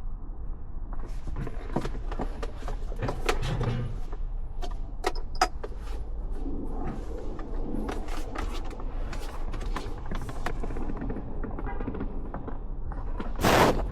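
Scattered light clicks and knocks of plastic dash trim and parts being handled and fitted, over a steady low hum, with a louder burst of noise near the end.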